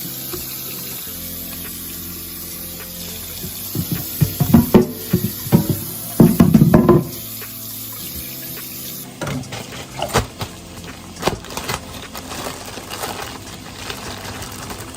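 Kitchen tap running into a sink while a cutting board is washed, with heavy clunks of the board handled in the sink. About nine seconds in the water stops, followed by scattered sharp knocks.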